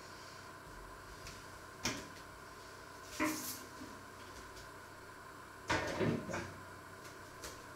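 Kitchen handling sounds: a sharp click, then a few clunks and knocks as a metal baking tray is lifted off a wooden worktop and put away. The loudest cluster of knocks comes about six seconds in.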